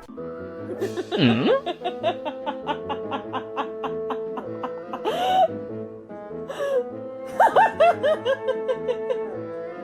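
Upbeat background music, with two short bursts of laughter, one about a second in and one near the end.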